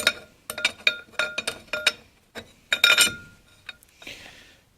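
Thin steel clutch plates for a 700R4/4L60 input drum clinking and ringing against each other as a plate is handled and laid onto the clutch pack. A run of light metallic clicks comes first, then a louder cluster of clinks about three seconds in.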